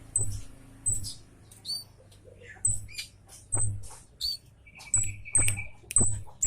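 Scarlet-headed flowerpecker (cabe jawa) giving loud, short, very high 'citt' calls, about ten spread irregularly, with a brief buzzy lower trill about five seconds in. A low thud sounds under many of the calls.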